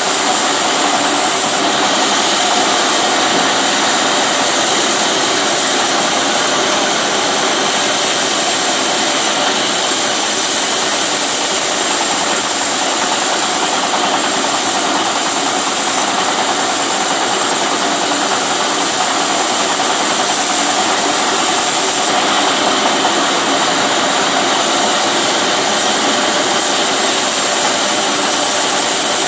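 Benso TB 28 chainsaw engine running steadily at a high, even speed, a loud, high-pitched buzz with no breaks.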